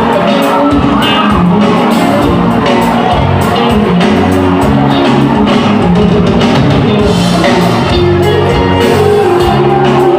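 Loud live pop-folk band music in a club: drums, electric guitar, bass and keyboard with a singing voice, and the crowd shouting along.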